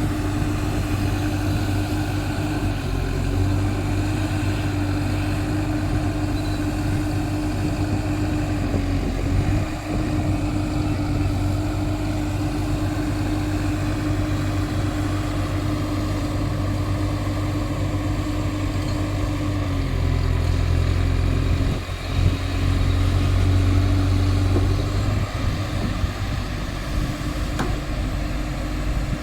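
Caterpillar excavator's diesel engine running steadily, with a steady whine over it. The engine note shifts about 20 seconds in, with brief dips in level twice.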